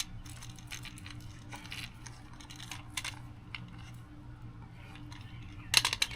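Light clicks and taps from working screen spline into a window screen frame with a spline roller tool, with a brief burst of louder clicks near the end, over a low steady hum.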